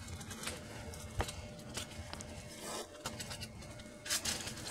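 Small clicks, scrapes and rustles as a fork and knife work open hot baked russet potatoes on a foil-lined sheet pan, with one sharp click about a second in.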